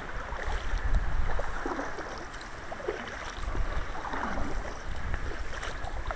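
Sea kayak being paddled, the paddle blades splashing into the water with each stroke, with wind rumbling on the microphone.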